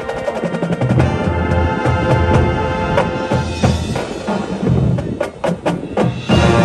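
High school marching band playing: sustained wind and brass chords over low drum hits, with a handful of sharp percussion strikes about five seconds in before the full band comes back in.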